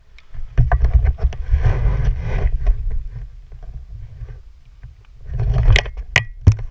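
Wind buffeting the camera microphone in uneven low gusts, with rustling and sharp clicks of handling noise as the parachute lines and camera are moved.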